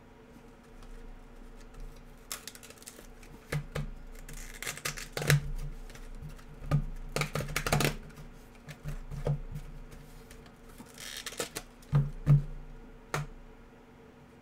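Hands opening and handling packs of basketball trading cards: crinkling of pack wrappers in a few short spells, among scattered sharp clicks and taps.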